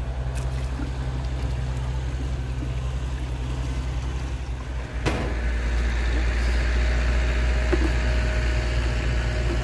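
Lawn mower engine running steadily with a low drone. About five seconds in there is a sharp click, after which the drone goes on a little louder.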